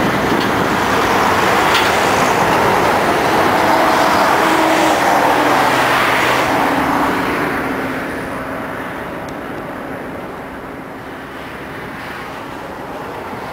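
Airbus A320's twin jet engines at takeoff thrust, loud and steady as the airliner begins its takeoff roll, then fading from about halfway as it accelerates away.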